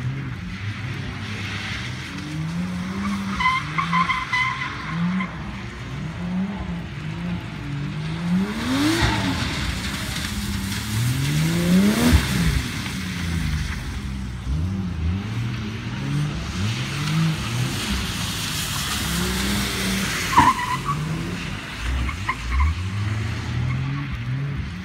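FPV FG F6's turbocharged inline-six revving up and down over and over as the car is slid around a wet skidpan, loudest as it passes close about halfway through. Tyres throwing up water give a spray hiss at times.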